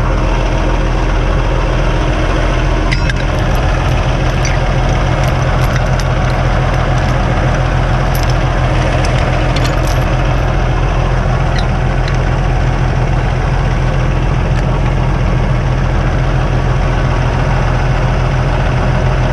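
Heavy truck diesel engine idling steadily, with a few faint clicks and knocks.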